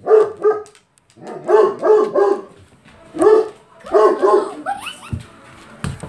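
Great Pyrenees barking in quick clusters of two to four barks, with a rising yelp about four and a half seconds in. A few sharp knocks follow near the end.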